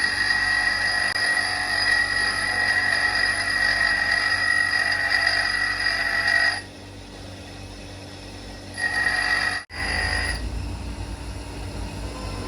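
An electric power tool's motor running with a steady high-pitched whine. It drops to a lower hum for about two seconds partway through, is cut off sharply, and then comes back.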